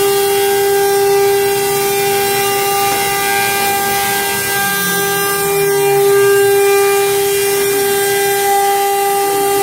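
CNC router spindle running with a steady whine, one strong unbroken tone with overtones above it. Fainter tones glide up and down beneath it.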